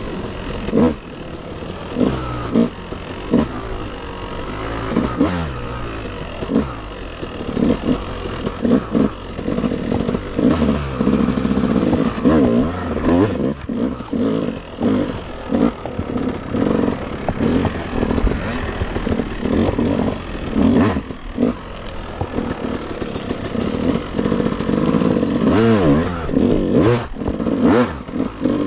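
Dirt bike engine revving up and falling back again and again as it is ridden hard along a rough trail, with a few sharp knocks from the bumps.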